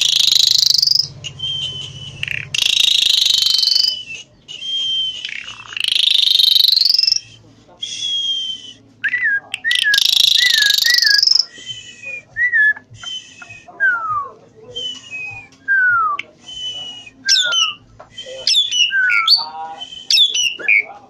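Caged Javan pied starling (jalak suren) singing a loud, varied song. Long harsh rising notes alternate with clear whistles, and the second half turns to quicker, shorter notes that slide downward.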